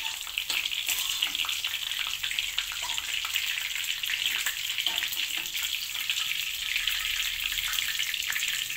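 Hot ghee sizzling and crackling steadily in a wok as batter-coated mutton chops deep-fry.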